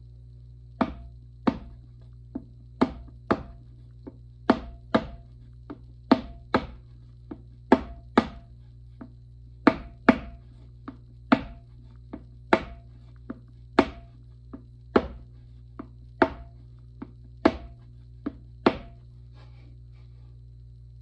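Small unfired clay cup knocked against a wooden board, about thirty sharp knocks, mostly in quick pairs about every second and a half, as its sides are tapped flat into a square shape.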